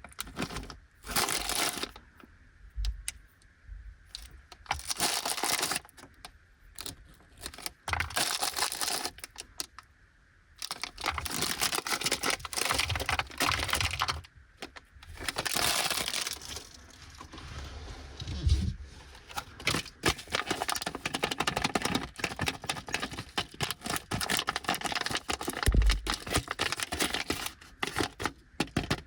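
Plastic sweet wrappers being handled and opened, crinkling and tearing in irregular bursts with small clicks and taps, with short pauses in between.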